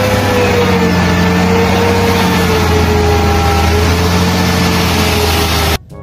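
Tata tipper truck's diesel engine running steadily while the raised bed tips out its load of sand, with a deep hum and a whine that slowly drops in pitch; it cuts off suddenly near the end.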